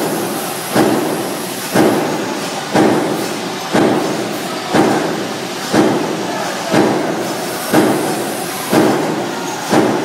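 Industrial metalworking machine running in a steady rhythm, giving a sharp metallic knock about once a second, each fading quickly into continuous machine noise.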